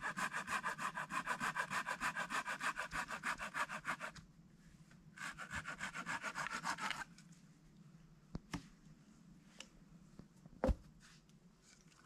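Hand saw cutting through a wooden branch in fast, even strokes, stopping about four seconds in, then a second short run of sawing. After that comes a handful of sharp wooden knocks, the loudest near the end.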